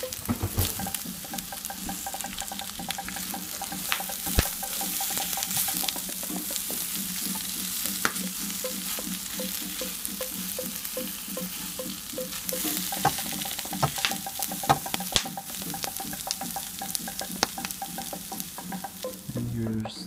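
Collard greens and morels sizzling in butter in a stainless steel frying pan, stirred with a spatula that scrapes and knocks against the pan now and then.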